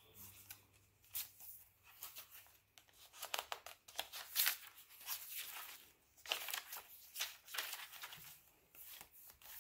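Paper pages and cardstock inserts of a handmade junk journal being turned and handled: a run of soft rustles and crinkles, a few louder than the rest.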